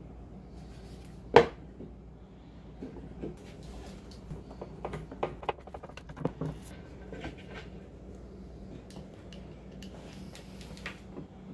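Flat-pack particleboard panels knocked against a wooden worktop, with one sharp knock about a second and a half in. Then come scattered clicks and taps as parts are handled and screws are driven with a hand screwdriver.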